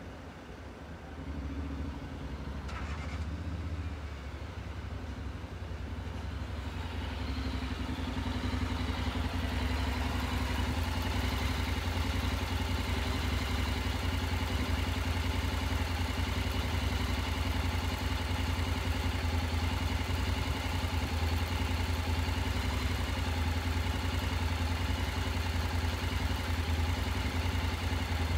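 An engine running steadily. It grows louder over the first several seconds, then holds level with a deep rumble.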